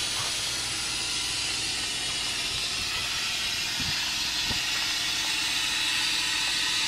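Steady hiss of a compressed-air tool running continuously.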